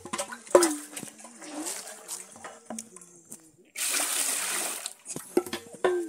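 Water being bailed out of a clay water pot with a plastic jug: small knocks and splashes as the jug dips in, then a loud pour of water lasting about a second, a little past the middle.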